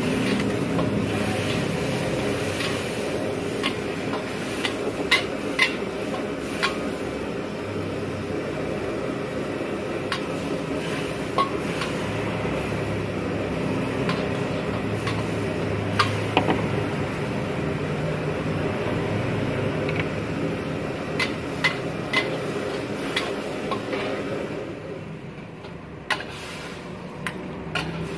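Steel ladle stirring in a wok of simmering sauce, scraping and knocking against the metal in scattered clicks over a steady cooking hiss. The steady noise drops somewhat near the end, as the shrimp are ladled out of the wok.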